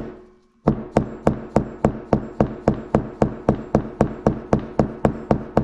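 Hammer blows, evenly spaced at about three a second after a short pause near the start, driving a new 6902RS bearing into a Bafang G60 hub motor; a faint metallic ring carries between the blows.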